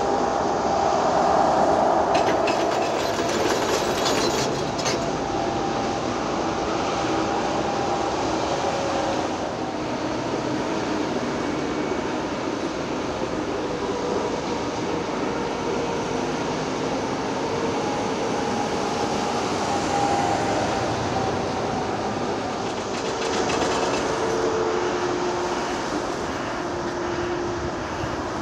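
Excavator's diesel engine and hydraulics running steadily, with a whine that drifts up and down in pitch.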